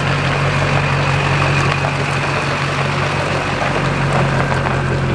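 Duramax turbodiesel pickup idling steadily, a constant low engine hum under an even hiss.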